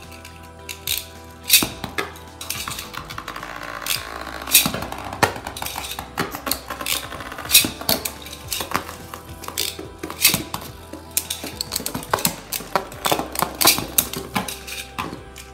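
Beyblade Burst spinning tops clattering together as they spin in a fabric bin, with many sharp, irregular plastic clacks where they collide and glance off the bin's floor and walls.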